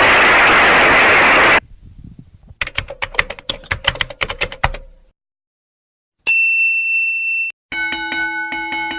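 A string of sound-effect clips played back: a loud hiss that cuts off after about a second and a half, a quick run of sharp clicks, then a single bright ding and a chime struck several times that rings out near the end.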